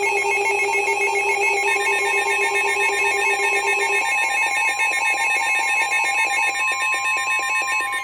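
Emergency Alert System attention signal: the steady two-tone alert tone sounding continuously with a throbbing edge. A lower tone under it stops about four seconds in, and a second steady, higher tone comes in about two seconds in.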